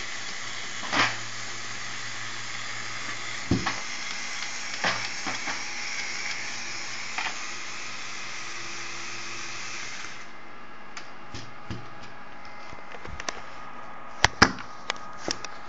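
Lego Power Functions XL motor running, driving a propeller through a Lego Technic joint, with a steady whir and occasional plastic clicks and knocks. The motor stops about ten seconds in, and the rest is a few scattered sharp clicks of Lego parts being handled.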